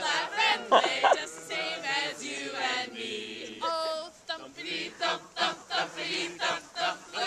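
A group of young people's voices chanting together, with one voice holding a high note briefly about four seconds in.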